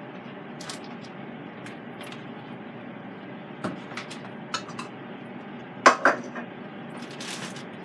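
Kitchen dishes and metal utensils being handled on a countertop: scattered light knocks and clinks, the loudest pair about six seconds in, over a steady hiss.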